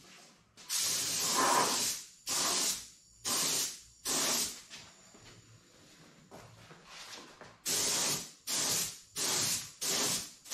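Compressed-air gravity-feed spray gun spraying surfacer in short trigger pulls: a hiss of air and paint in eight bursts, the first about a second long and the rest about half a second each, in two groups of four with a pause of a few seconds between.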